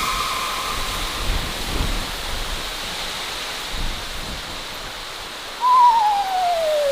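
Spooky Halloween sound effects over a steady hissing, wind-like noise bed: a held eerie tone fades out about a second in, then near the end a loud long wail starts suddenly, wavers briefly and slides steadily down in pitch.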